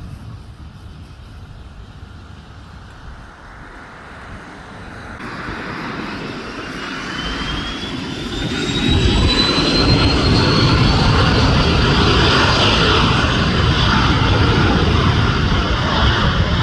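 Twin-engine business jet's turbofans spooling up to takeoff power: a rising whine over a growing rumble, which builds to a loud, steady noise about halfway through.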